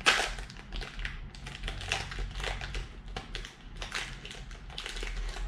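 Clear plastic wrapper of a fortune biscuit crinkling and crackling as it is worked open by hand, in a run of irregular short crackles, the loudest right at the start.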